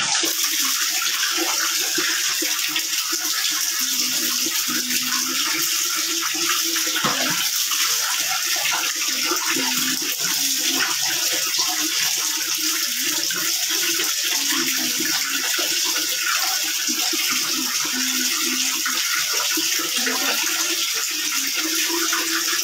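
Water running steadily from a wall tap into a plastic bucket, a constant splashing hiss.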